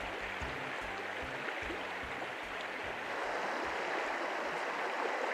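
Shallow, clear mountain creek running over a gravel and cobble bed: a steady rush of water, a little louder about three seconds in.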